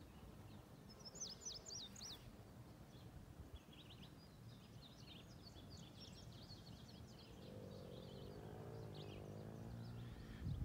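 Faint birdsong: a quick run of high chirps about a second in, then scattered chirping through the middle, over a low steady rumble.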